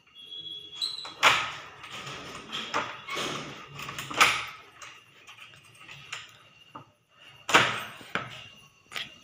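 A series of sharp knocks and thumps, irregularly spaced, the kind made by handling a door and things around it; the loudest come about a second in, about four seconds in and near the end.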